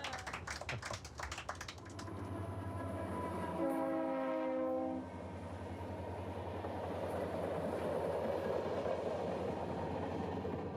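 Diesel train running with a steady low rumble. Its horn sounds once, a multi-note chord lasting about a second and a half, about four seconds in.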